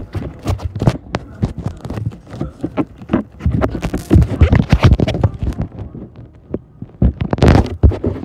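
Handling noise from a phone being swung around: irregular knocks, scrapes and rubbing on the microphone, loudest in a run about halfway through and again near the end.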